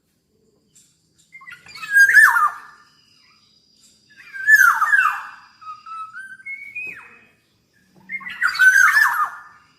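Black-naped oriole calling: three loud downslurred calls, one every two to four seconds, with short whistled notes between the second and third.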